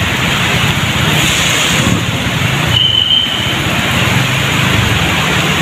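Heavy rain pouring over a flooded road with a motorcycle engine running at low revs underneath. A short high-pitched tone sounds about three seconds in.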